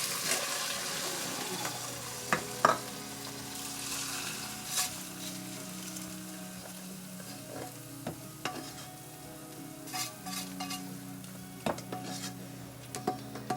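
Chicken pieces sizzling in ghee in a pan, a steady frying hiss, with a utensil knocking against the pan now and then.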